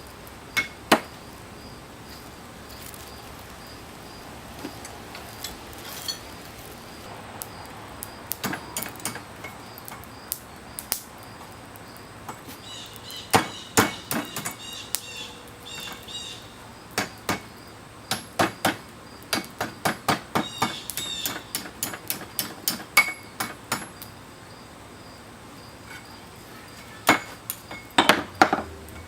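Blacksmith's hammer striking steel on an anvil. A few scattered blows come first, then quick runs of strikes with a short metallic ring, broken by pauses.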